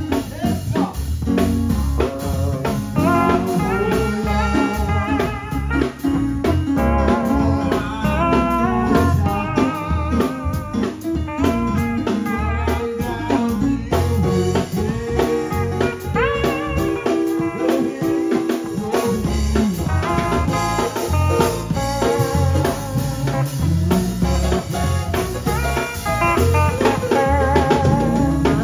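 Live gospel band playing a bluesy groove on drum kit, keyboard and guitar. The drums and bass drop out briefly a little past halfway, then come back in.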